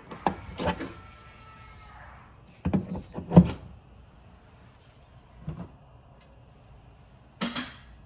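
Tesla wall connector charging handle being pulled out of the car's charge port and pushed back in: a series of plastic clicks and knocks, with a short whir about a second in.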